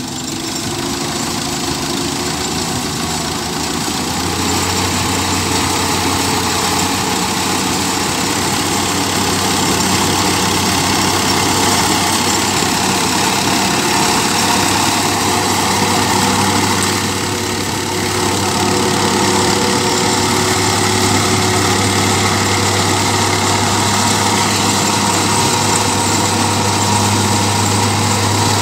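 Tractor engine running steadily under load while driving a belt-and-pulley digging implement through the soil by its PTO shaft. The engine hum grows louder about four seconds in and then holds.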